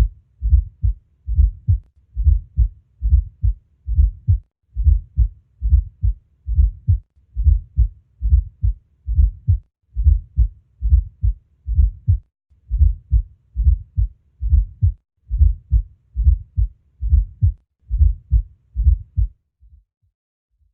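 Heart sounds heard through a stethoscope with a fourth heart sound (S4 gallop): each beat is a low extra thud just before the first heart sound, followed by the second, repeating a little over once a second and stopping near the end. An S4 is the sign of the atria contracting against a stiff, poorly compliant ventricle.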